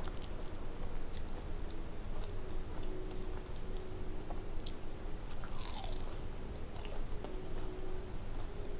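Close-up biting and chewing of crispy fried chicken nuggets: crunchy crackles of the breaded coating between steadier chewing sounds, with a few brighter crunches partway through.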